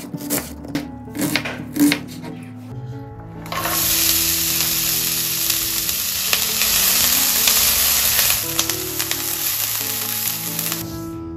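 Food sizzling as it fries in hot oil in a pan, starting about three and a half seconds in after a few light knocks and clicks, and easing off near the end. Background music with held notes plays throughout.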